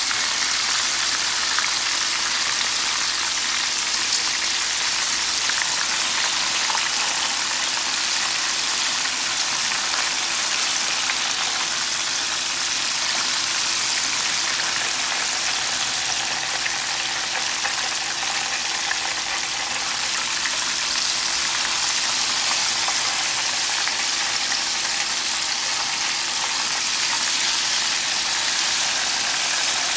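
Flour-coated chicken wings deep-frying in hot oil: a steady, even sizzle.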